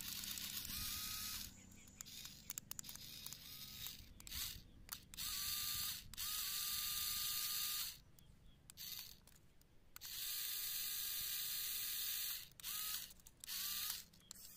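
Small battery electric gear motors of a toy remote-control JCB backhoe loader whirring in short bursts, about seven times, as the remote's buttons are pressed. Each burst starts with a brief rising whine as the motor spins up, then holds steady until it stops.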